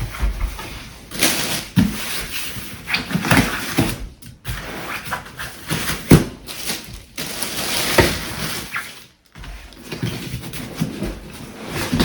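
Irregular rustling and crinkling from a self-inflating sleeping pad and its packaging being handled, with short pauses about four and nine seconds in.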